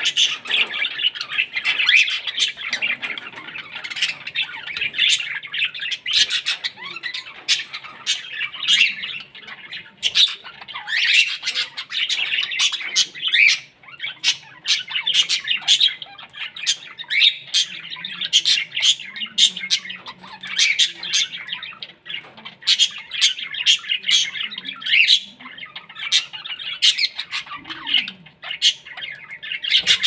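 A flock of caged budgerigars and cockatiels chattering and squawking without a break, with many sharp, short chirps through the chatter.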